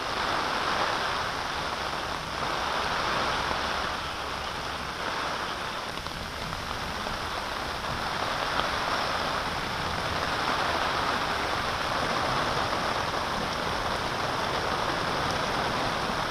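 Heavy rain pouring onto a wet paved road and roadside trees, drops splashing into standing water in a steady hiss.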